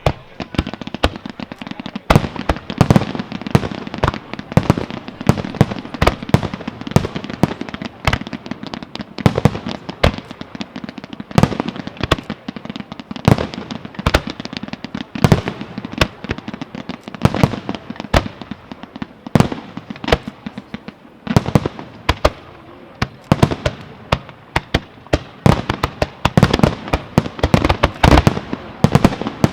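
Aerial fireworks display: a dense, continuous run of sharp shell bursts and bangs, several a second, over a lingering crackle.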